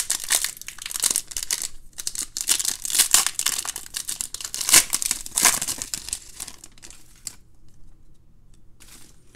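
Foil wrapper of a Topps Chrome Update Sapphire Edition trading card pack being torn open and crumpled by hand: dense crinkling and crackling for about seven seconds, then it goes quieter, with a brief rustle near the end.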